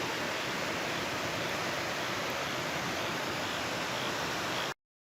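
Rushing floodwater: a steady, loud rush of noise that cuts off suddenly near the end.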